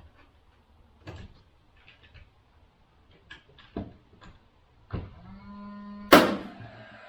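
Scattered knocks and taps as a PVC soffit panel is worked into place overhead, then a sharp bang about six seconds in, followed by a ringing tone that hangs on.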